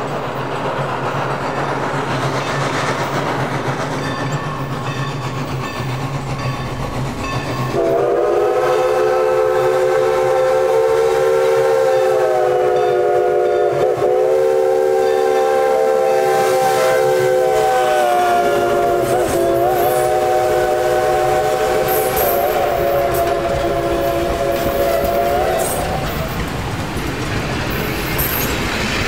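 Everett Railroad's 2-6-0 steam locomotive No. 11 running past with its train, with a loud rumble of the engine and wheels on the rails. About eight seconds in, its steam whistle sounds several notes at once and is held for about eighteen seconds, with a few short breaks and dips in pitch. Near the end the coaches roll by with a clickety-clack of wheels.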